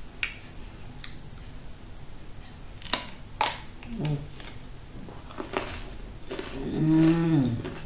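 Crisp crunching of bites into a raw cucumber, with sharp cracks at about three seconds in, and chewing. Near the end a person's long hummed 'mmm', rising then falling in pitch, is the loudest sound.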